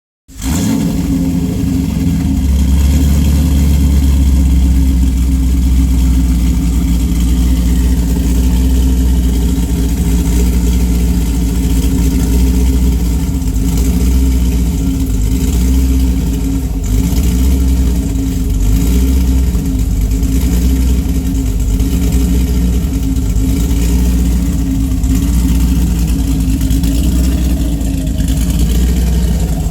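Engine with a custom-ground performance cam idling steadily through headers and a cat-back exhaust with a mid muffler and J-pipes, running with a really bad misfire.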